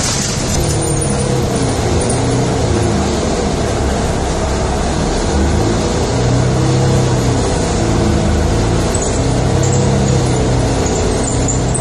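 Running engine and rolling noise of a moving vehicle heard from inside its cabin: a steady loud rumble with a low engine hum that rises and falls slightly in pitch.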